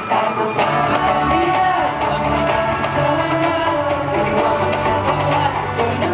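Pop song played loud at a live concert, with drums, guitar and a sung vocal line.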